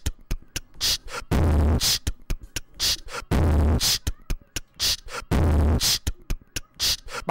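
Sparse, punchy dance beat: a heavy bass hit about every two seconds, with sharp clicks and hissing hi-hat strokes in between.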